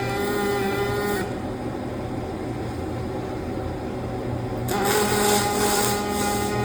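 Electric arc welding: a steady welder hum with a crackling arc, stopping about a second in and striking up again near five seconds in. A low hum carries on between the two runs.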